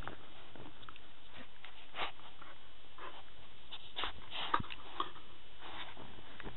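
Dog play-biting and mouthing at close range: a few soft, scattered clicks and brief mouth sounds over a steady low background.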